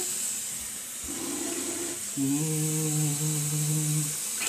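Bathroom sink tap running with a steady hiss of water; about two seconds in, a person hums one steady note for about two seconds.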